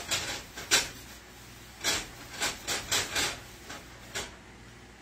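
A paper towel rubbed around the inside of a frying pan in short, irregular wiping strokes, about seven of them.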